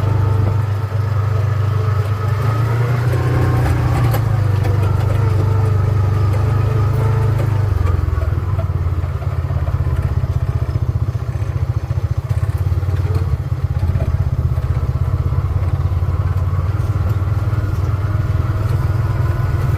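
A vehicle engine running steadily, heard from on board as a loud low hum. Its pitch shifts about eight seconds in.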